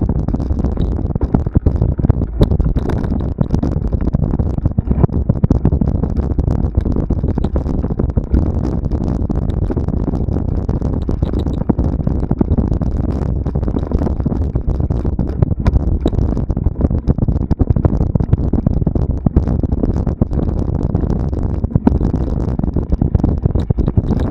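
Steady low rumble of wind and movement buffeting a camera microphone along a cross-country trail, with frequent small knocks and rattles throughout.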